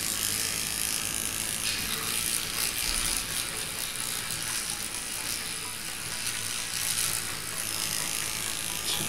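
Battery-operated electric toothbrush running steadily while it brushes a dog's teeth.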